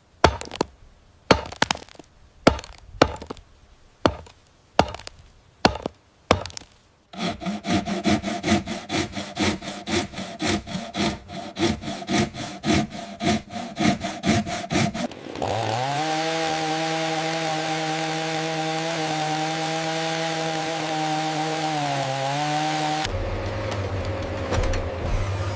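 Wood being sawn and worked: about a dozen separate sharp strokes, then quick, steady sawing strokes. About fifteen seconds in, a steady motor whine takes over, rising as it starts and dipping briefly near the end, and gives way to a low hum.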